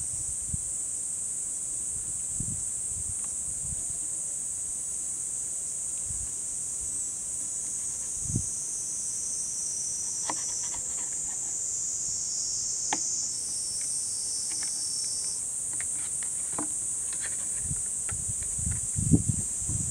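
A steady, high-pitched chorus of insects, with light knife taps and clicks on a cutting board as a lemon is sliced, more of them in the second half.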